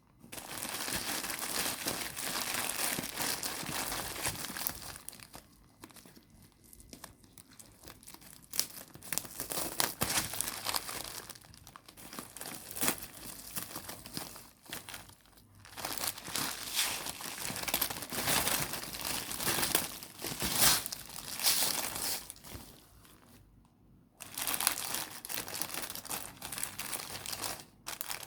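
Packaging crinkling and tearing as a parcel is opened and handled by hand, in spells with short pauses.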